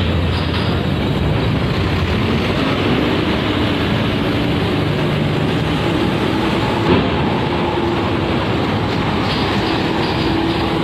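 Large bus's diesel engine running as it drives past, a loud steady rush with a faint whine that rises and then holds steady from about midway.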